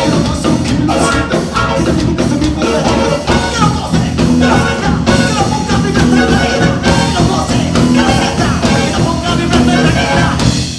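A band playing lively music with steady percussion and singing; it starts to fade out near the end.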